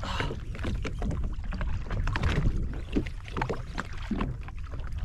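Water sloshing and splashing irregularly around a small personal watercraft at sea, over a steady low rumble of wind on the microphone.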